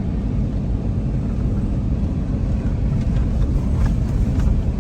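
Steady low rumble of a car heard from inside the cabin: engine and road noise while driving.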